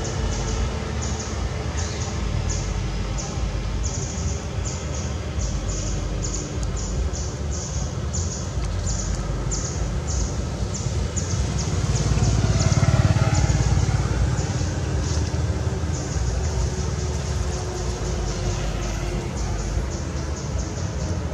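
Outdoor background sound: a steady low rumble that swells for a couple of seconds near the middle, under a high chirping repeated about two to three times a second.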